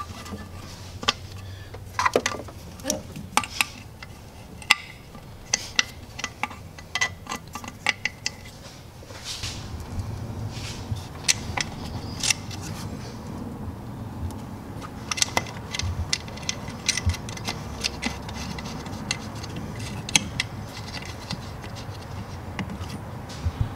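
Scattered clicks and light clinks of hands refitting hoses, clamps and connectors on a car engine's intake manifold. A low steady hum comes in about nine seconds in.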